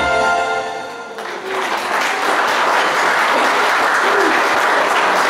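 The last chord of a song's accompaniment dies away, and about a second in an audience breaks into applause, steady clapping that carries on.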